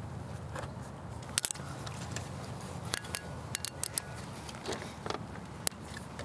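Scattered small plastic clicks and ticks of nylon zip ties being threaded and pulled tight around a bike frame to hold a MOLLE panel, over a low steady background hum.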